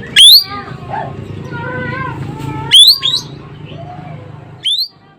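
Ekek keling bird calling: four loud, sharp calls that sweep steeply upward, with softer wavering whistled notes between them over a steady low background rumble that cuts off near the end.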